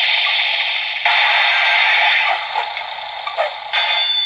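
DX Mirai Driver toy belt's speaker playing the electronic sound effects of its Kamen Rider Quiz transformation: a loud, hissy effect that cuts and picks up again about a second in and jumps louder near the end.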